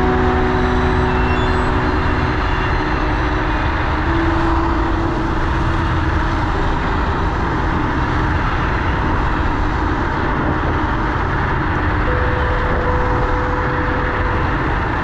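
Steady rush of wind on the action camera's microphone, with road noise, while riding a Minimotors Dualtron Thunder electric scooter. A few faint steady tones come and go.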